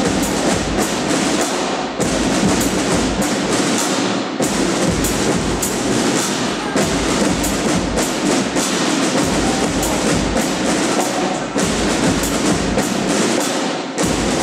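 Ensemble of marching snare drums playing a fast, dense rhythm together, with deep bass drum strokes underneath.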